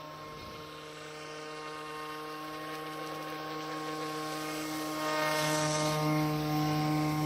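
RC airboat's electric motor and air propeller running with a steady whine, getting louder about five seconds in.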